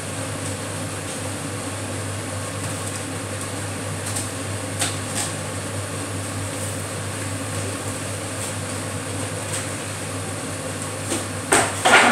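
Steady hum of a kitchen appliance. Two light knocks come about five seconds in as items are handled in a wall cupboard, and a louder clatter of handling comes near the end.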